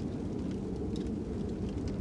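Fire crackling, with scattered sharp pops over a steady low wind noise.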